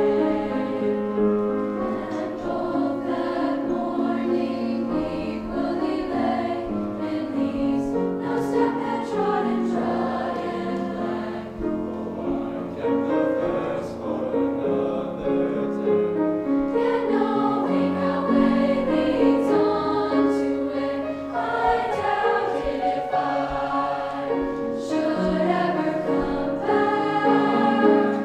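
Mixed choir of boys' and girls' voices singing together, with notes held and changing every second or so.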